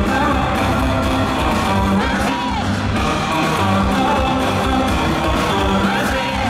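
Live pop-rock song played loud over a concert sound system, with a singer's voice over the band and the audience shouting along at times.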